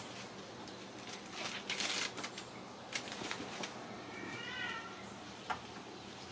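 Ragdoll kittens at play: scattered scratching, rustling and light clicks of claws and paws on a fabric play cube and cardboard tubes, with a single short kitten meow that rises and falls about four seconds in.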